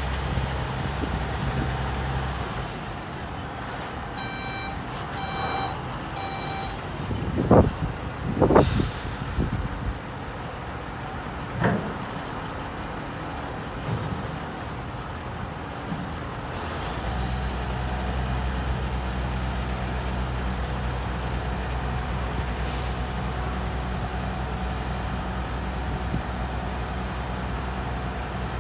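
2003 Renault 6x4 dump truck's diesel engine running as it manoeuvres, with three reversing-alarm beeps and then loud air-brake hisses as it stops. About seventeen seconds in the engine speeds up and holds steady while the hydraulic tipper body is raised, with one brief air hiss partway through.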